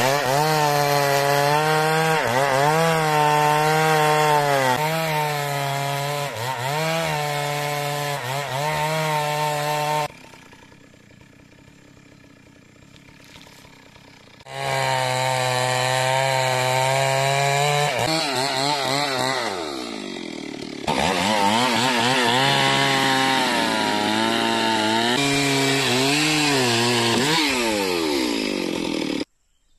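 Two-stroke Stihl chainsaw running at high revs while ripping kapur logs lengthwise into slabs and planks, its pitch sagging under the load of the cut and rising again. It drops out for about four seconds partway through, then returns, and later revs down and up several times before cutting off suddenly.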